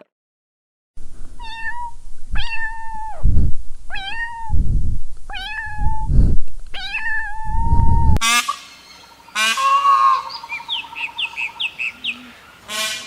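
Cat meowing: five high-pitched meows about a second apart, with low rumbling noise between them. After about eight seconds the sound cuts to a different recording with short high chirps and a few sharp clicks.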